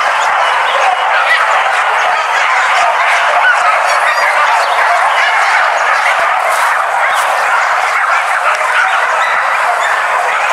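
A pack of hunting dogs yelping and baying all at once, a dense, steady chorus of overlapping calls.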